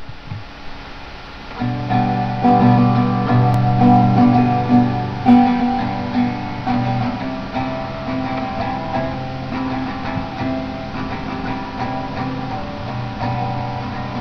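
Music led by a strummed acoustic guitar, quiet at first and coming in fully about a second and a half in.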